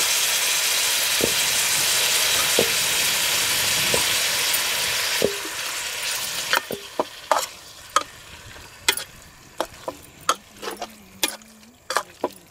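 Meat frying in a metal pot, sizzling loudly. About five seconds in the sizzle drops away, and a metal spoon stirring the meat clinks and scrapes against the pot many times.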